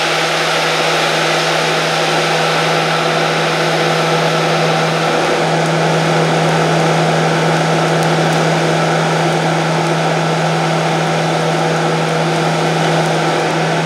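Van engine held at steady high revs in a burnout, its rear tyres spinning against the ground. A loud, unbroken drone that steps slightly up in pitch about five seconds in.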